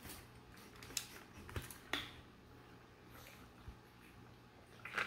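A few soft clicks and knocks in the first two seconds as a metal drink tumbler is picked up and handled, then little more than room tone while a drink of iced tea is taken.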